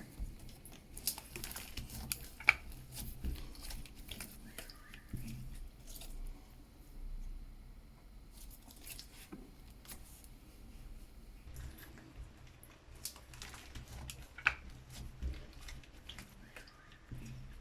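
Hands squishing and stretching clear slime, giving irregular small clicks, crackles and squelches.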